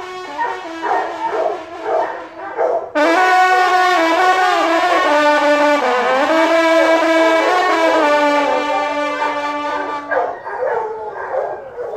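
French hunting horn (trompe de chasse) sounding a long call, much louder from about three seconds in and ending about two seconds before the end, over a pack of hounds baying and yelping, which stand out again after the horn stops.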